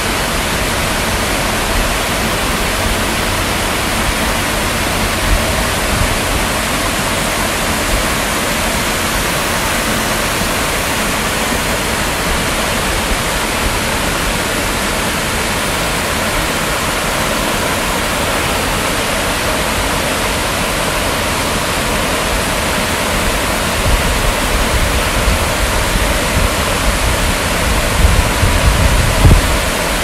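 Water from a tiered rock waterfall splashing steadily into a pond, a continuous rushing hiss. Low rumbles come in near the end.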